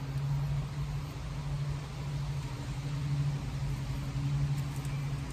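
A steady low mechanical hum, like a motor running, with no change in pitch.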